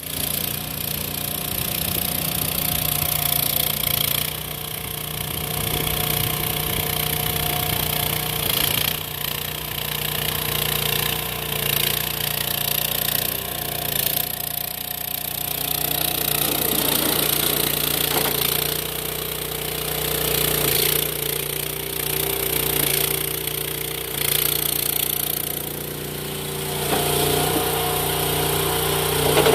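Engine of a YSRT14 mini stand-on track loader running steadily, with a few higher tones that change pitch now and then as the machine is worked.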